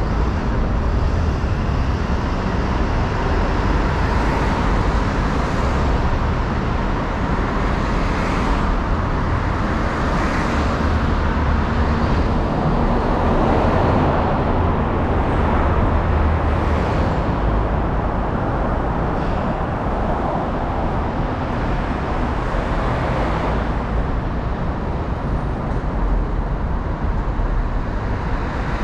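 Road traffic: cars and other vehicles passing on a busy street, a continuous rush of tyres and engines with a few passing swells.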